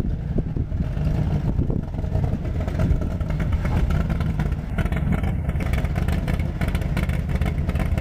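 Shelby Cobra–style roadster's engine running through its side-exit exhaust pipes as the car rolls slowly past at low revs, a steady, deep sound.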